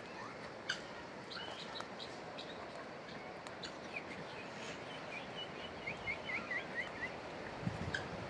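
Small birds chirping: scattered short high calls, then a quick run of about eight short rising notes about six seconds in, over steady background noise.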